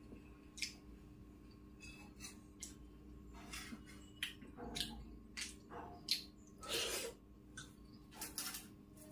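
Steel spoon scraping and clinking against a stainless-steel plate as rice and curry are mixed and scooped, with wet chewing and mouth sounds in between, about a dozen short irregular sounds in all. A faint steady hum lies underneath.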